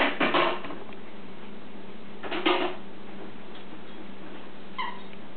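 Dachshund puppies play-fighting, giving short yappy growls: a cluster right at the start and another about two and a half seconds in, then a brief high squeak near the end.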